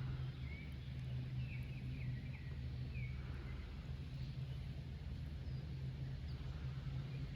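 A few faint bird chirps, short falling notes in the first three seconds, over a steady low hum.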